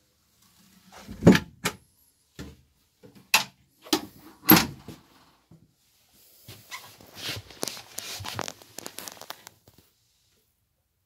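Wooden engine-compartment cover of a boat being moved and shut: a few loud knocks and thumps, the loudest about a second in, then several seconds of scraping and rustling as it is handled.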